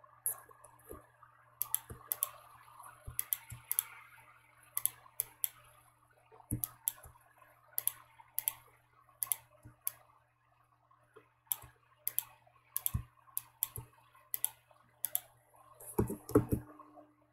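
Computer mouse and keyboard clicks, irregularly spaced and some in quick pairs, with a denser cluster of heavier clicks near the end, over a faint steady hum.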